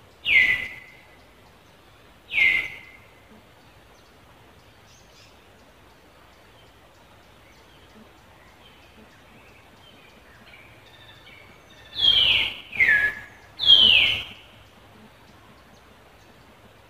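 Five short, loud, high-pitched animal calls, each sliding down in pitch. Two come about two seconds apart at the start, and three follow in quick succession about twelve seconds in.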